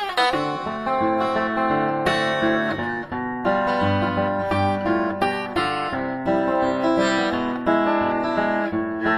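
Simon & Patrick SP6 steel-string acoustic guitar played solo fingerstyle: a lively ragtime piece of quickly picked single notes and chords ringing over a bass line.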